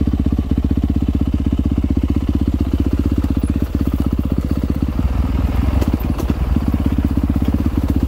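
Dirt bike engine running steadily under way on a sandy trail, its firing a fast, even pulse. About five seconds in, rougher crunching and clatter from the ground joins it for a second or so.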